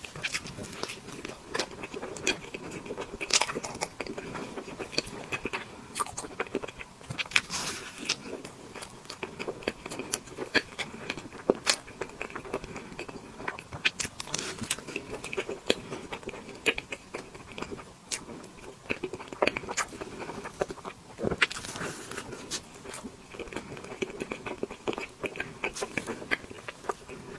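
Close-miked eating of tiramisu cake: chewing with many irregular wet clicks and smacks of the mouth.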